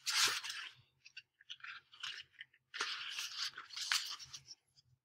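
Pages of a paperback book being handled and flipped: crinkling, rustling paper in a short burst at the start and a longer burst from about three to four and a half seconds in, with small ticks of paper between.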